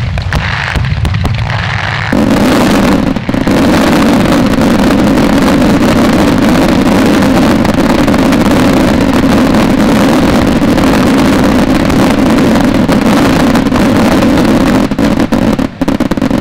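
A large fireworks barrage, many batteries and fountains firing at once. Crackling at first, then from about two seconds in the shots merge into a continuous loud roar that breaks off shortly before the end.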